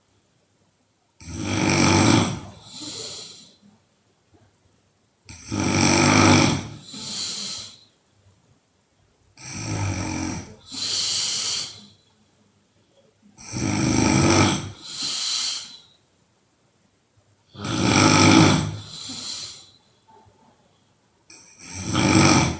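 A sleeping woman snoring loud, in a regular rhythm of about one breath every four seconds. Each breath is a long, loud snore followed by a shorter, softer one.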